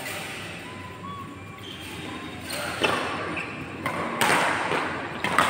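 Badminton rackets smacking a shuttlecock during a doubles rally: sharp hits a little under three seconds in, again around four seconds and just before the end, echoing in a large hall, with a few short squeaks between them.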